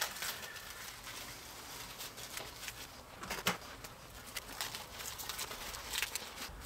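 Plastic wrap crinkling and rustling as it is handled and pressed around a plastic dog skeleton's adhesive-coated rib cage, with a few sharper crackles about halfway through and near the end.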